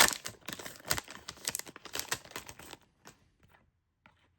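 Foil trading card pack wrapper crinkling and tearing open in the hands, dense crackling for nearly three seconds, then a few faint ticks of cards being handled.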